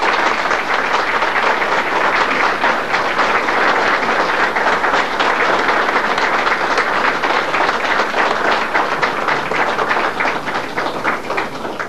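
Audience applauding with dense, steady clapping, which tails off at the very end.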